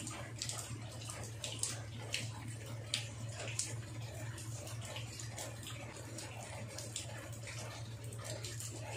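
Water running and splashing as chicken stomachs are washed by hand, with scattered small clicks and knocks over a steady low hum.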